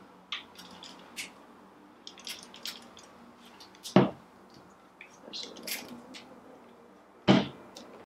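Trigger spray bottle spritzing water onto hair in several short hisses, with handling noise and two louder knocks, about four seconds in and near the end.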